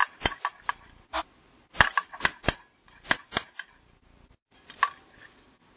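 Metal stem of a dial thermometer clinking and tapping against a glass measuring cup while it stirs melted soft plastic, over a dozen irregular sharp clicks with a short lull about three-quarters of the way through.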